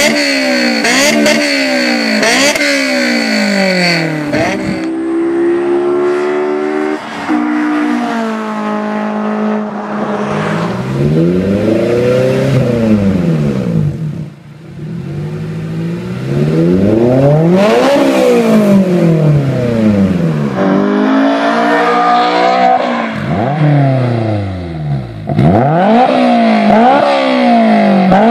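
Honda S2000 four-cylinder engine revved again and again at standstill, heard through several different exhaust systems in turn: a modified stock exhaust, then aftermarket ones. The pitch rises and falls with each rev, some as quick blips and some as longer climbs to high rpm.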